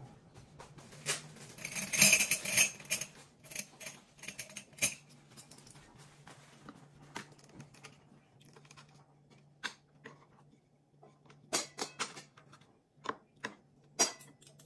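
Cutlery and dishes clinking and tapping at a meal: a busy run of sharp clicks in the first few seconds, then scattered single clicks, over a faint low hum.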